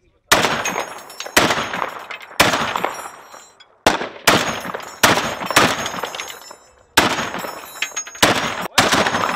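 Turret-mounted heavy machine gun firing single shots, about ten of them roughly a second apart. Each loud report is followed by a long fading echo.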